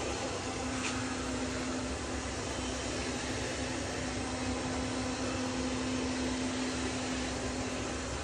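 MAMNV robot vacuum running: a steady motor whir and airflow with a constant low hum, and a faint tick about a second in.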